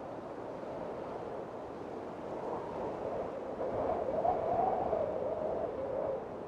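Strong storm wind and rough, whitecapped water: a steady rushing noise with a wavering, moaning tone that swells for about two seconds in the second half.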